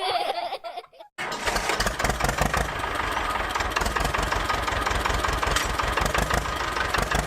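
A tractor engine starts abruptly about a second in after a short silence, then runs steadily with rapid, even pulses.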